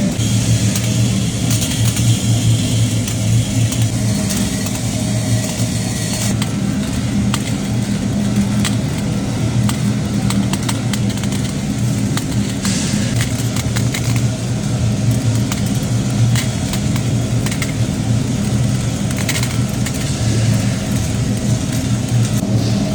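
Factory machinery running with a steady low hum, and many small clicks and clinks scattered over it.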